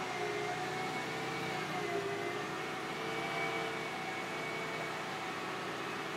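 Mercedes-Benz E-Class sedan's engine idling steadily, with a few faint steady whining tones over the running sound.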